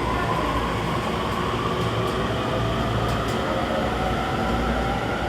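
Electric train running on the rails: a steady rumble with a faint motor whine that drifts slowly in pitch.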